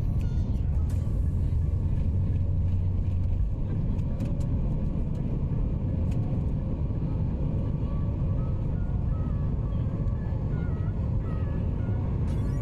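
Steady low rumble of a vehicle heard from inside, with a deep hum that drops away about three and a half seconds in.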